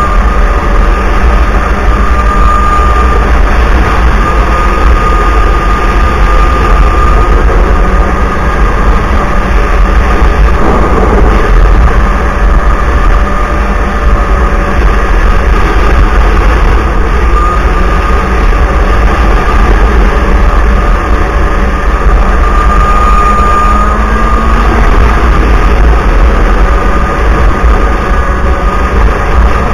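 Snowmobile engine running steadily at cruising speed, a constant engine whine over a low rumble, heard from a camera mounted on the sled.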